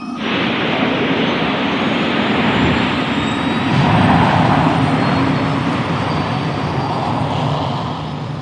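A film sound effect of a steady jet-engine roar that starts suddenly, swells about four seconds in, and begins to fade near the end.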